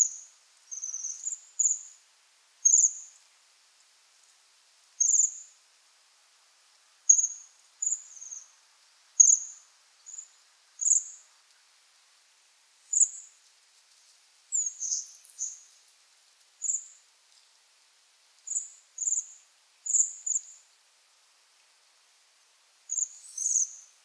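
Bohemian waxwings giving their high, thin trilling calls: short calls every second or two, some in quick pairs or clusters.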